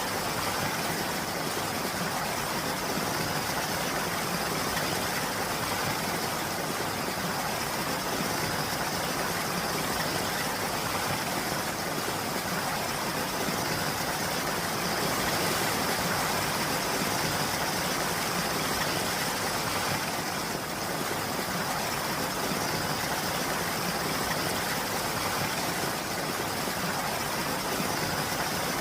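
Steady rain falling as an even, unbroken hiss with no distinct drops or other events standing out.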